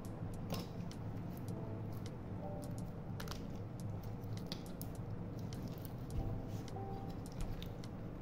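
Light, irregular clicks and rubbing from gloved hands handling and turning the rubber-armoured body of a pair of Steiner 8x30 binoculars, over a steady low hum.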